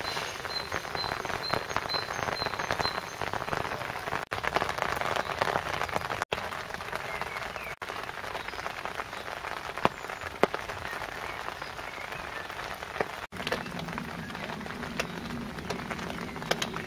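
Steady rain falling, with two sharp louder drop hits about ten seconds in.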